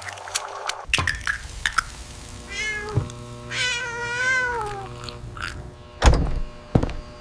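A cat meowing twice: a short meow about two and a half seconds in, then a longer meow that rises and falls a second later. Two dull thumps follow near the end.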